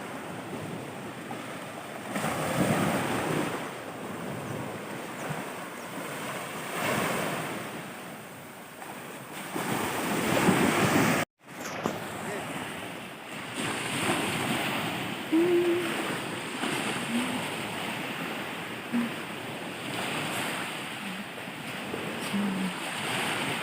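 Sea waves washing onto a shore, the surf swelling and falling back every few seconds, with wind buffeting the microphone.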